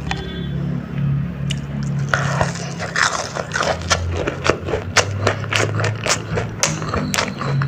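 Close-up crunching as someone bites into and chews a crispy battered, fried baby corn dog. A dense run of crackles starts about two seconds in, over a low steady hum.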